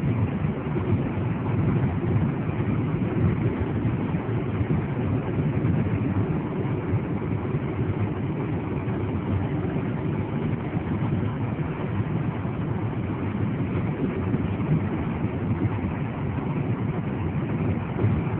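Steady road and engine noise inside a moving car's cabin, a constant low rumble.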